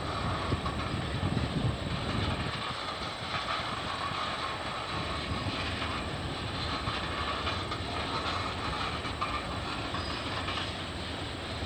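CN 570 freight train's cars rolling slowly on the track: a steady wheel-on-rail noise with light clacking, and a heavier low rumble in the first two seconds.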